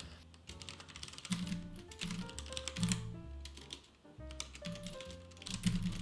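Typing on a computer keyboard, quick keystrokes in short runs, over background music with a bass line and a simple melody.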